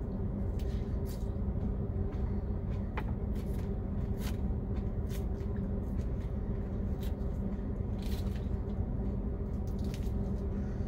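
Chewing a mouthful of crisp lettuce and a plastic fork poking and clicking in a plastic salad container: scattered short crunches and clicks over a steady low hum.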